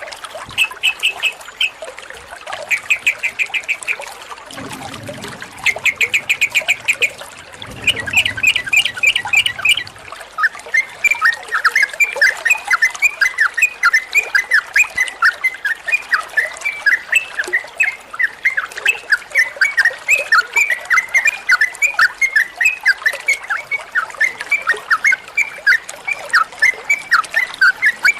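Sooty-headed bulbul singing: short bursts of rapid, trilled notes for the first ten seconds, then a fast, unbroken run of chattering notes.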